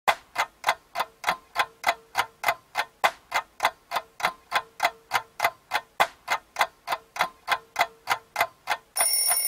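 Ticking-clock sound effect, even sharp ticks about three a second. Just before the end an alarm starts sounding with steady high tones.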